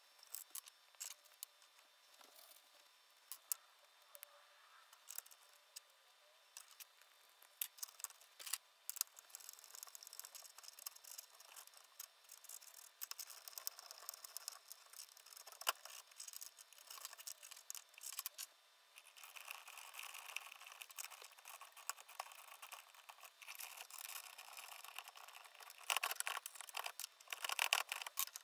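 Faint clicks, taps and light rattling of hands fitting metal bolts, rod-end suspension links and plastic mounts onto an aluminium chassis, with a louder run of clattering near the end.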